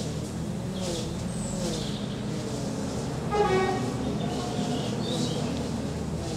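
Outdoor background with a steady low hum and small birds chirping now and then, broken about halfway through by one short horn-like honk.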